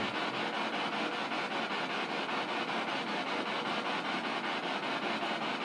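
A steady hiss with a fast, even flutter running through it.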